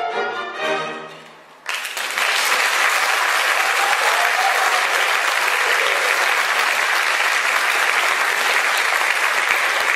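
The music's last chord ends about a second and a half in, and the theatre audience then breaks into loud, steady applause.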